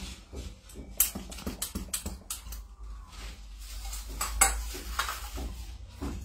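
Scattered clicks and light clatter of plastic cupping cups and a hand suction pump being handled, loudest a little over four seconds in.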